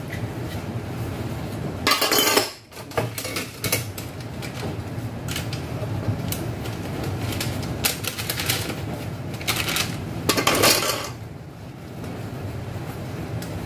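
Dishes being washed by hand: ceramic bowls, chopsticks and utensils clinking and knocking against each other and a stainless steel basin, over a steady low hum. Two louder rushes of clatter or splashing come about two seconds in and again around ten seconds in.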